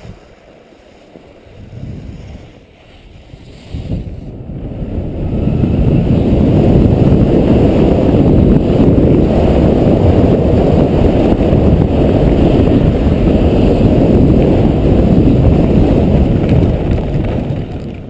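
Wind rushing over a skier's camera microphone during a fast downhill run: a loud, low rumbling roar that builds up a few seconds in and dies away near the end as the skier slows to a stop.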